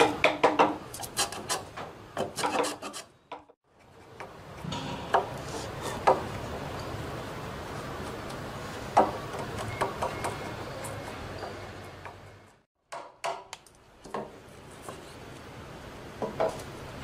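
Hand tool scraping and paring at a wooden timber joint: irregular rubbing strokes of steel on wood, with a few sharp clicks. The sound drops out briefly twice.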